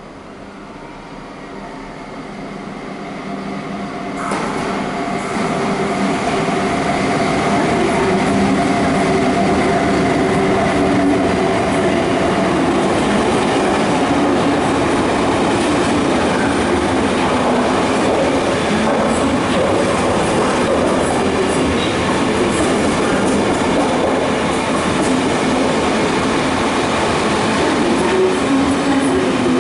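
Ten-coach KTT through train passing non-stop through the station. It grows louder over the first few seconds, then the wheels rumble and clatter steadily on the track as the coaches go by.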